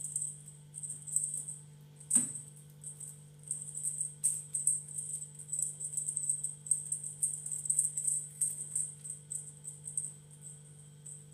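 Small bell on a feather wand cat toy jingling in irregular shakes as the wand is waved, over a steady low hum. A single sharp knock about two seconds in.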